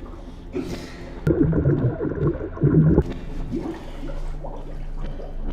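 A man gurgling and spluttering with water in his mouth and face, loudest from about one to three seconds in.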